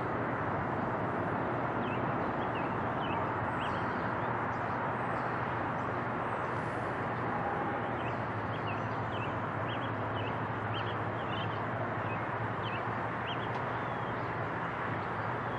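Steady rumble of an Airbus A330's twin jet engines on final approach, fading slightly as the airliner moves away. Small birds chirp in short notes throughout.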